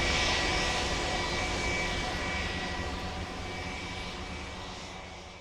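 Airplane engine drone, steady, fading out toward the end: a flyover sound effect laid under a travel-map animation.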